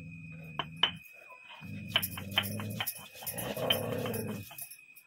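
A dog growling low in three stretches of about a second each, with short breaks between them, and a few sharp clicks over it.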